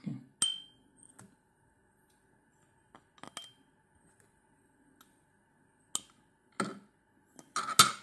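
A few light metallic clinks, each with a short high ring, spread out at irregular intervals, from small metal fly-tying tools knocking against the vise, with soft handling sounds near the end.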